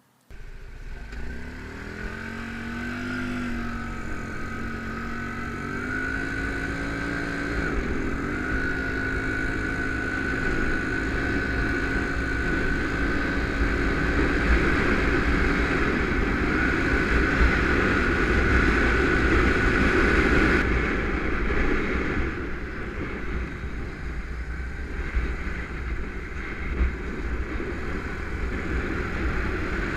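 Small motorcycle engine pulling away and accelerating, its pitch climbing and stepping at gear changes made by an automatic gearshift system in the first several seconds. It then holds a steady pitch and eases off about 20 seconds in, over a low wind-like rumble.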